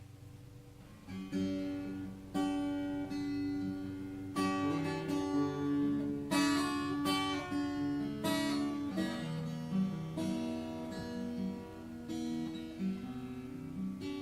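Acoustic guitar playing chords as a song's introduction, starting about a second in.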